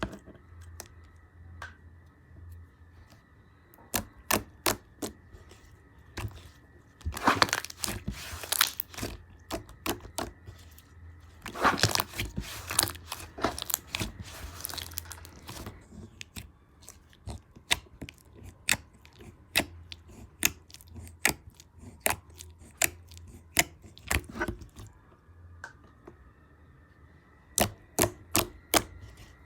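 Hands squishing and stretching fluffy cotton candy slime, making a run of sharp clicks and pops. Two longer spells of dense crackling come about seven and twelve seconds in.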